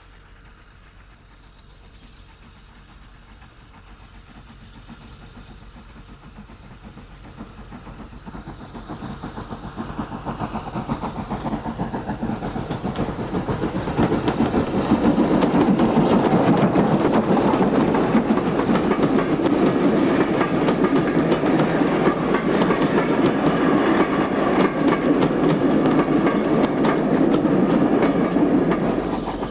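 Steam locomotive hauling a train of coaches, approaching and passing close by. Its sound grows steadily louder for about fourteen seconds, stays loud as the engine and coaches go past, and drops off slightly near the end.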